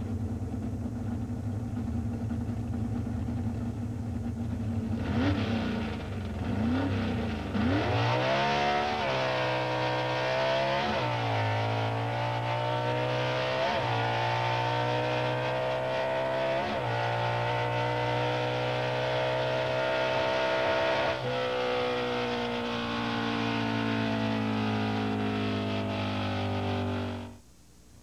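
A motor vehicle engine: a steady low hum, then from about eight seconds in accelerating, its pitch climbing and dropping back at several gear changes. It cuts off suddenly near the end.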